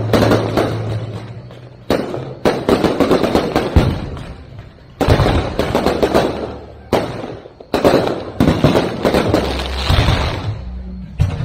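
Aerial firework shells bursting one after another, roughly every one to two seconds. Each sharp bang is followed by dense crackling that fades over a second or so.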